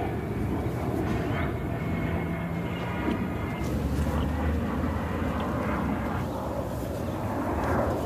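Airplane passing overhead: a steady, even engine rumble.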